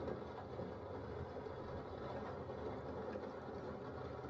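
Steady rumbling noise that runs on evenly, with no distinct events.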